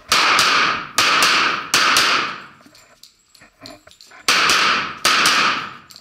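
Sig Sauer TacOps 1911 pistol firing five shots in two strings, three about a second apart, then a pause of a couple of seconds and two more, each report ringing out in the echo of an indoor range.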